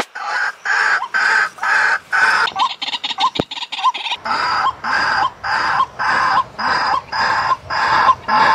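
White-breasted waterhen calling in a steady, regular series of repeated notes, about two a second.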